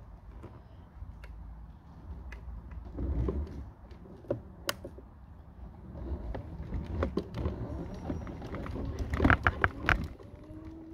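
Mobility scooter driving along a road: a steady low rumble of road and wind noise with scattered clicks. A quick run of loud knocks and rattles comes near the end.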